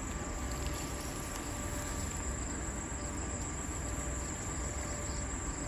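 Crickets chirring in a steady, high-pitched drone, with a low rumble beneath.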